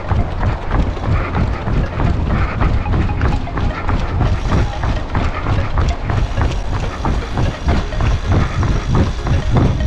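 A runner's footfalls on asphalt in a quick, even rhythm, over a steady rumble of wind and movement on a body-worn camera's microphone.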